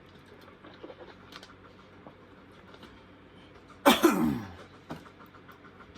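Faint chewing and mouth sounds, then about four seconds in a single loud cough whose pitch falls away, as the superhot pepper's heat catches the throat.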